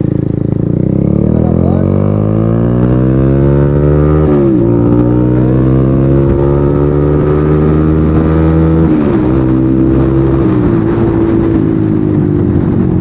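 Bajaj Pulsar 150's single-cylinder engine running loud through an aftermarket SC Project exhaust as the bike accelerates, the pitch climbing and then dropping sharply twice, about four and a half and nine seconds in, as it shifts up.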